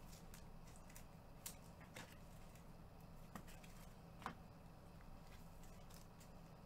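Near silence with a few faint, short clicks and rustles of trading cards being handled and flipped through.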